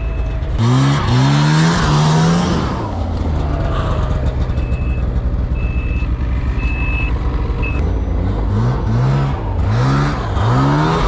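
Ski-Doo Tundra snowmobile engine revving up in repeated short bursts, with a steady lower running note between them. In the middle, a high electronic beep sounds four times: the sled's reverse warning beeper, sounding while it is in reverse.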